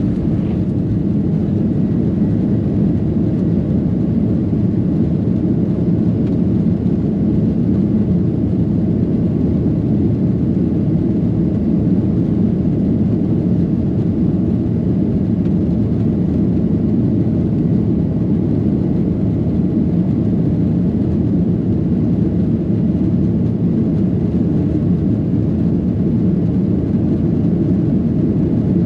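Airliner cabin noise during take-off or climb: a steady low rumble of engines and airflow.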